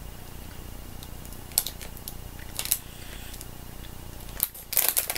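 Crinkling of a thin plastic sweets bag being handled: a couple of isolated sharp crackles, then a quick flurry of crinkles near the end.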